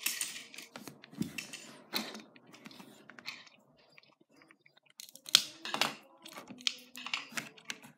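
Loose plastic Lego bricks clicking and clattering as a hand rummages through them in search of a piece, with a quieter spell in the middle and a flurry of sharp clicks over the last three seconds.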